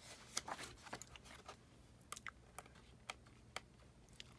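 Pages of a glossy album photo book being turned by hand: faint paper rustles and scattered light clicks of the stiff pages.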